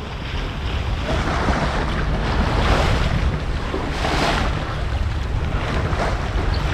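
Wind buffeting the microphone over water rushing and splashing along a sailboat's hull while it is under sail.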